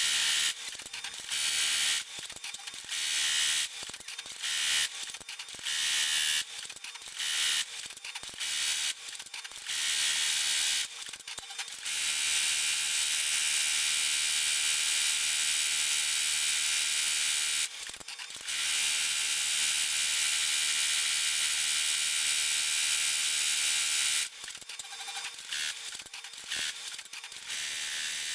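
Multi-needle commercial embroidery machine stitching, a dense fast mechanical chatter. It stops and restarts about once a second for the first part and again near the end, with a long unbroken run of stitching in the middle.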